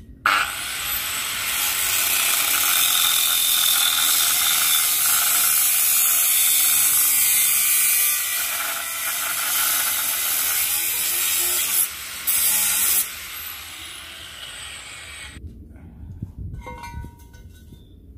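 Angle grinder with a cut-off disc spinning up and cutting through a square steel tube: a loud, steady cutting noise for about twelve seconds, a short break and a second brief cut, then the disc winding down. Near the end, a few light metal clanks as the cut tube is handled.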